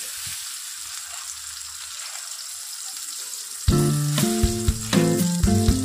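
Chopped onions sizzling in hot oil in a steel kadhai, a steady hiss. About two-thirds of the way in, background music with a beat comes in, louder than the sizzle.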